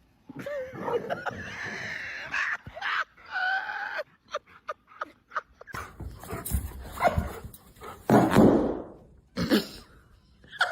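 A dog vocalizing with wavering, whine-like calls for the first few seconds, followed by scattered knocks and a short rushing burst of noise later on.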